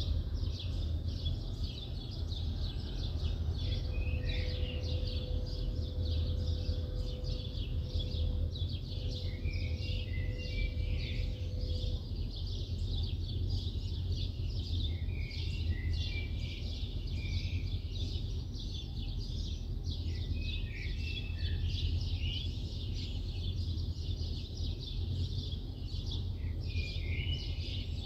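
Many small birds chirping and twittering without pause over a steady low rumble of distant city traffic. A faint steady hum is also heard from about four to twelve seconds in.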